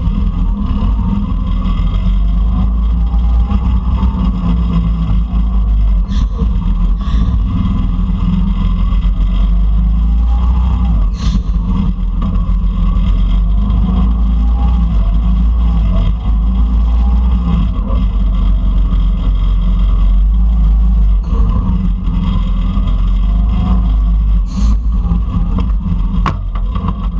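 Go-kart engines running at speed close up, with a heavy low rumble and engine pitch rising and falling, plus a few brief knocks.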